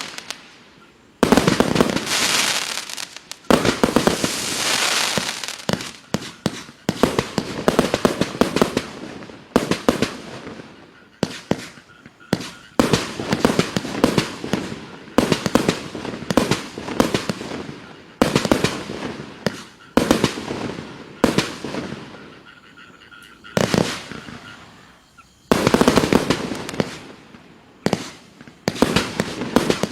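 Klasek 'Show 256' 30 mm compound firework cake firing: rapid volleys of launch shots and bursts, broken by short pauses of about a second before the next sequence starts.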